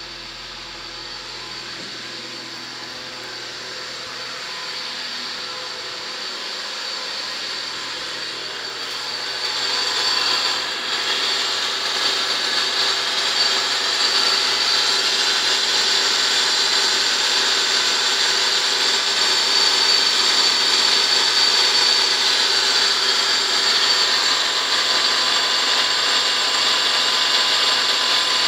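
Peugeot 306 1.8 16v engine running with a steady mechanical whir made of several steady tones, louder from about ten seconds in. It is an odd noise that the owner believes is not normal and says he has heard, exactly the same, on other Peugeots.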